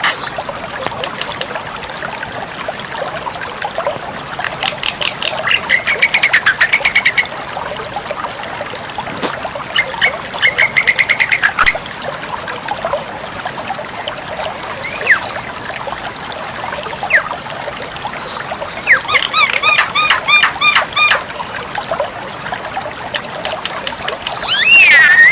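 Javan myna (jalak kebo) calling in full voice: several bursts of fast, repeated harsh notes, with a sliding whistle near the end.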